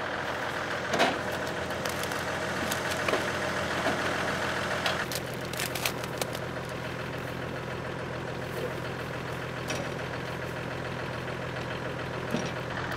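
An engine running steadily, with a fuller upper part that drops away about five seconds in. Scattered knocks and snaps of dead branches being handled and loaded sound over it.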